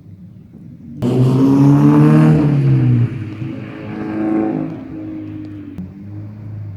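Toyota GT86 / Scion FR-S flat-four boxer engine starting about a second in: it flares up loudly, drops back, swells briefly once more, then settles to a steady idle.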